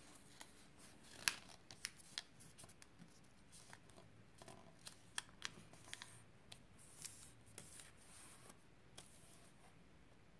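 Origami paper being folded and creased by hand: a scatter of short, sharp crackles and taps, the loudest about a second in, with soft paper rustling between.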